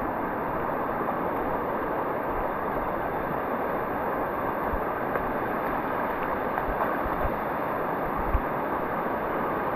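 Waterfall's rushing water, a steady loud roar, with a brief low bump a little over eight seconds in.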